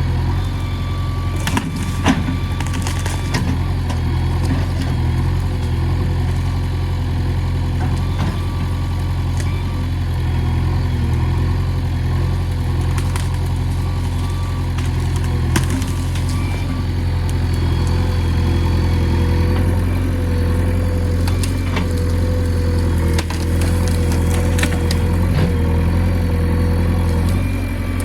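JCB 3DX backhoe loader's diesel engine running steadily while the machine digs, with a faint wavering whine above the engine hum. Scattered short knocks come through at irregular intervals.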